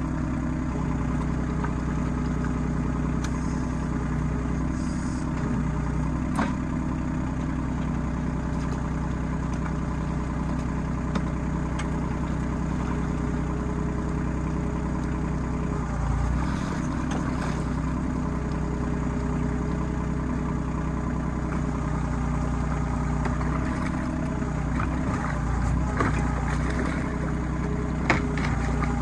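RK25 compact tractor's diesel engine running steadily, with a few sharp metallic knocks, the biggest about six seconds in and near the end.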